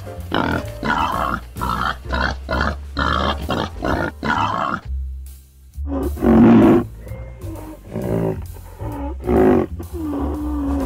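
A quick run of animal grunts, about two a second, for the first few seconds; then, after a short pause, a large animal roaring in several loud calls, with background music.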